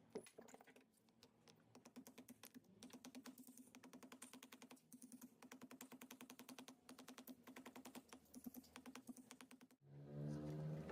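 Faint, rapid clicking, many clicks a second, over a low steady hum. A louder low pitched hum starts about a second before the end.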